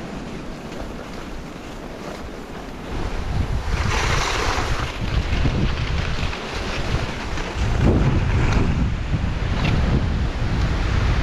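Wind buffeting the microphone and cross-country skis hissing over snow on a fast downhill run. It grows louder about three seconds in, with a brighter scraping hiss about four seconds in.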